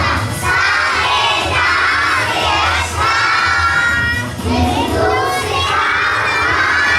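A group of young children singing loudly together, half-shouting, with music behind them.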